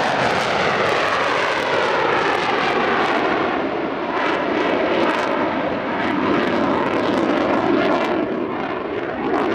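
Dassault Rafale's twin Snecma M88 turbofans in afterburner: a loud, steady jet roar as the fighter pulls up and climbs away, its pitch sweeping downward over the first few seconds.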